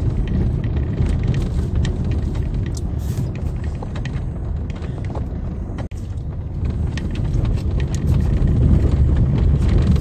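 Car driving slowly over an old cobbled stone road, heard from inside the cabin: a steady low rumble of engine and tyres, with small rattles and knocks from the uneven stones. The sound cuts out for an instant about six seconds in, and the rumble gets louder toward the end.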